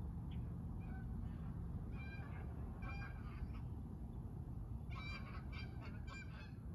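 Geese honking in short calls: one each about two and three seconds in, then a quick run of four near the end, over a steady low background noise.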